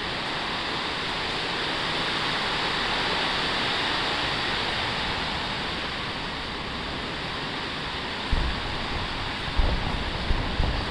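Heavy rain on a tin roof, a steady dense hiss that swells a little partway through. Near the end a few short low thumps break in.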